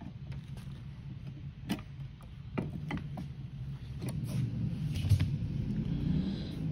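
A few sharp clicks and knocks of a hand tool and metal and plastic parts being worked at the steering column of a kids' ride-on quad bike, over a steady low hum. In the second half, denser handling knocks and rumble, with one louder knock.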